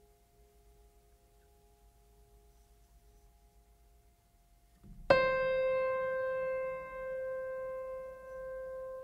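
Background music: faint held tones, then about five seconds in a single piano note is struck and rings on, slowly fading.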